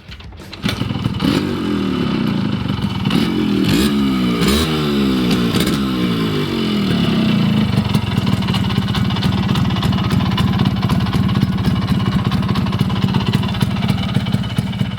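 Yamaha RX100's two-stroke single-cylinder engine, freshly rebuilt and rebored, starts about half a second in. It is blipped up and down in quick revs for a few seconds, then settles to a steady idle.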